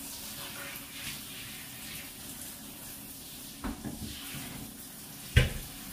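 Handheld shower head spraying water over a dog in a shower stall: a steady rush of water. A few soft thuds come a little past halfway, and a sharp knock near the end is the loudest sound.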